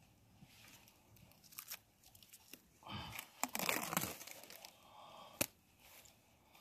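Plastic grafting tape crinkling and tearing as it is handled and wrapped over a fresh chip-bud graft on a persimmon stem. The rustling is loudest about three to four seconds in, and there is a single sharp click a little after five seconds.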